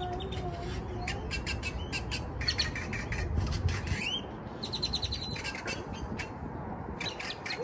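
Songbirds chirping in quick runs of short notes, with a few rising whistled glides, over a low wind rumble on the microphone.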